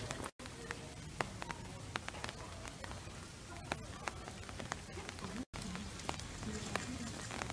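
Light rain falling on wet stone paving, a steady hiss with scattered sharp drop ticks and faint voices under it. The sound drops out briefly twice, about half a second in and again after about five seconds.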